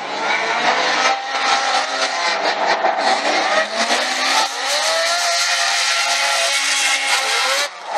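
Two drift cars sliding in tandem, their engines revving up and down over the screech of spinning tyres.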